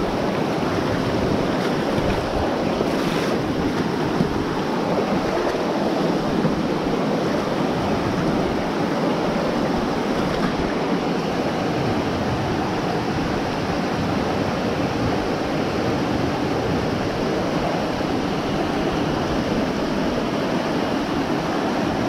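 Small rocky trout stream rushing steadily over rocks and little cascades, heard close at hand as an even wash of water noise.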